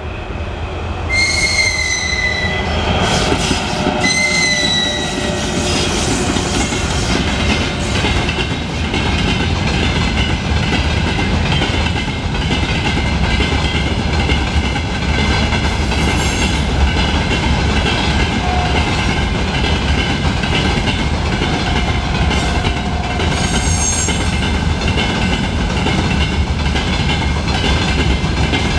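Freight train of empty gondola wagons and container flatcars rolling past, a rhythmic clatter of wheels over rail joints over a steady rumble. Two short high-pitched squeals about a second and four seconds in, and fainter high squeaks later on.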